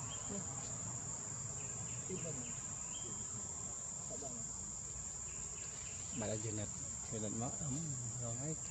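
Forest insects droning, a steady high-pitched whine that never lets up. From about six seconds in, voices are heard talking underneath it.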